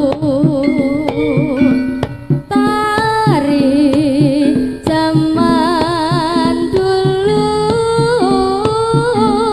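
Live Javanese jaranan ensemble music: a lead melody with heavy vibrato over drumming and steady gamelan tones.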